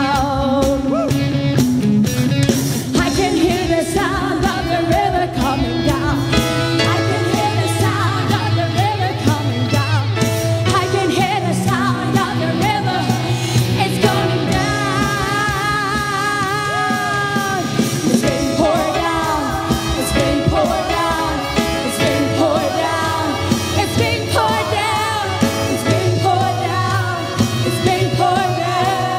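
Live worship band playing with drums, bass and singing.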